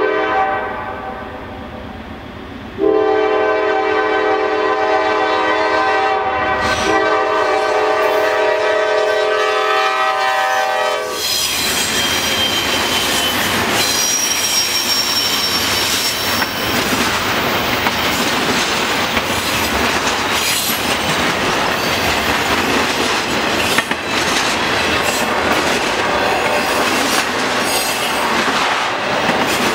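Horn of a GE Dash 9 diesel locomotive sounding for a grade crossing: a blast that ends just after the start, then a long blast of about eight seconds. The lead locomotives then pass at speed, followed by a double-stack intermodal train with a steady rumble, rhythmic clickety-clack of wheels over rail joints and a brief thin high squeal.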